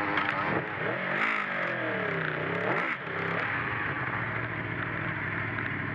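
Aprilia Tuono V4 motorcycle's V4 engine revved with the throttle, the pitch rising, falling and rising again over the first three seconds, then settling to a steady idle.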